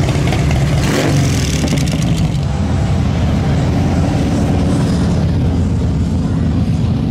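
Motorcycle engines running with a steady low exhaust note, with a few sharp clicks from about one to two seconds in.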